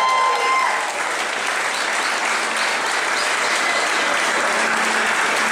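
A roomful of people applauding, a steady, dense clapping that holds even throughout.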